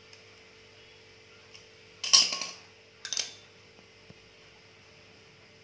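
A clear plastic bag of small metal fishing hooks being handled: two short bursts of crinkling and clinking, about two and three seconds in, the first louder. A faint steady hum runs underneath.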